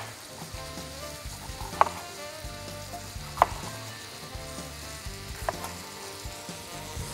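Onion, carrot and courgette sizzling as they fry in a pan. A knife knocks sharply on a cutting board three times, about every one and a half to two seconds, as bell peppers are sliced.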